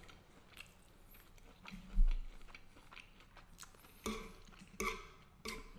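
Close-up mouth sounds of a man chewing garlic butter shrimp pasta, with small wet clicks and smacks. A low thump about two seconds in is the loudest sound.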